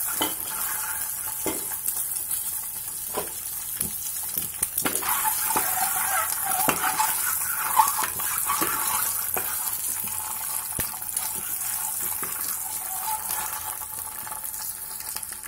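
Boiled eggs frying in hot oil with turmeric in a metal pot: a steady sizzle, with a metal spoon knocking and scraping against the pot every second or two as the eggs are turned.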